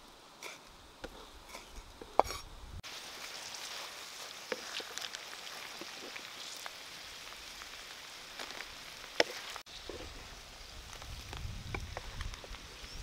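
Grubs sizzling as they fry in oil in a wok and are stirred with a wooden spatula, an even hiss with small scattered pops. The sizzle starts suddenly about three seconds in and breaks off near ten seconds.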